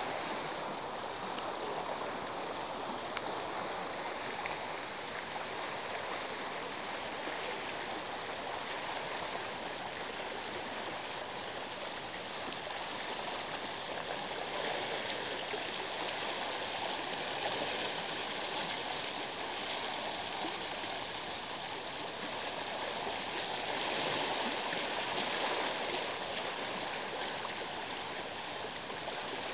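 Steady rushing of water, an even noise without distinct events, swelling a little near the end.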